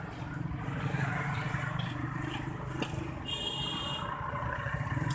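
A steady low rumble with a few sharp crackles from a wood fire, and a short high-pitched beeping tone lasting under a second about three seconds in.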